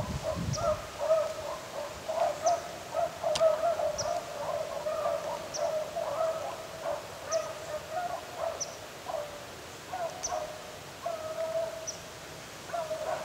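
A pack of rabbit hounds baying in an overlapping chorus of short calls while running a rabbit they have jumped.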